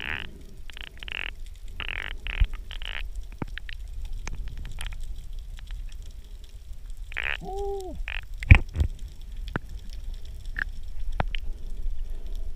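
Underwater sound picked up by a camera below the surface: a steady low water rumble with scattered clicks and crackles, several bursts of bubbly hiss in the first few seconds, a short tone that rises and falls about seven seconds in, and a sharp click soon after.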